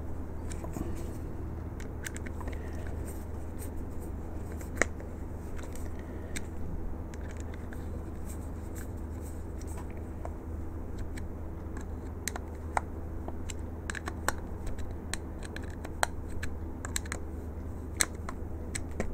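Small screwdriver snugging up the screws in the cover of a Hornady case prep trio: scattered light clicks and scrapes of the bit in the screw heads, over a steady low hum.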